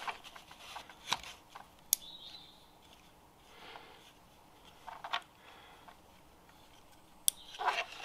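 A few sharp, isolated clicks from a 12V dimmer switch being switched on and then off again, with soft handling rustles in between.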